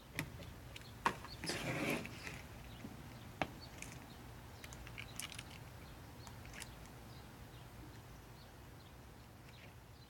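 Faint handling sounds at a repair bench: a few sharp clicks and a short rustle about a second and a half in, then only scattered light ticks.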